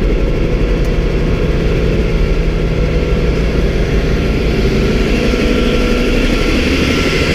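Bell 47 helicopter's piston engine and rotor running steadily on the ground, heard from inside its open, doorless cabin.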